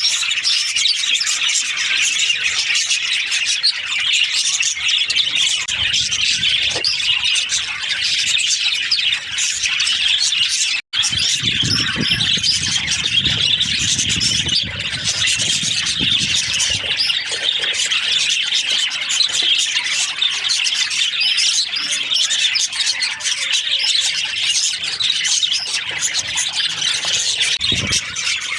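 A colony of budgerigars chattering and chirping continuously, a dense mass of overlapping squawks and warbles. The sound drops out for an instant about eleven seconds in, followed by a low rumble for a few seconds beneath the chatter.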